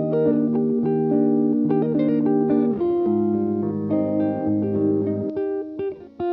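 Background music: plucked guitar notes over a bass line, with a brief drop just before the end.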